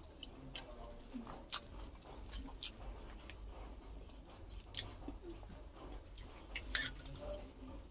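Close mouth sounds of someone chewing and biting momos, with irregular wet smacks and clicks, two louder smacks around the middle and near the end.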